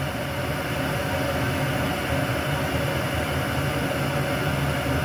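Two Jetboil-style canister gas stoves, an original Jetboil and an unbranded copy, burning at full flame with a steady hiss while heating water toward the boil.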